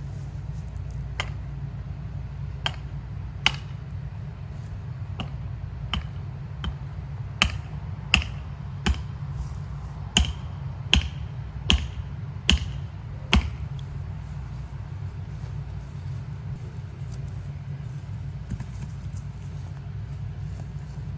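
A series of about fifteen sharp knocks, roughly one every second or less, that stop a little past halfway, over a steady low rumble.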